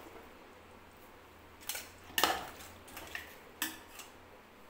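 Long metal spoon knocking and scraping against the side of a large aluminium pot while stirring cooked chicken pieces in masala: a run of about six short clinks, starting near the middle, the loudest a little past two seconds in.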